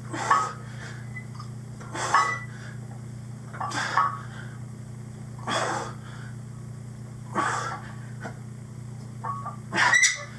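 A man's forceful breaths and grunts, one with each barbell curl rep, about every two seconds, over a steady low hum.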